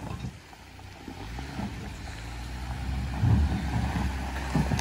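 A 2021 Jeep Gladiator's engine pulling under throttle as the truck climbs out of a ditch, growing steadily louder as the driver feeds in gas. There are a few dull low thumps along the way.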